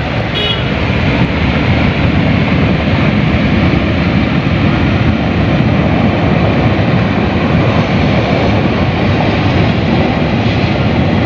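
Floodwater rushing in a muddy mountain torrent: a loud, steady, unbroken rush of water noise.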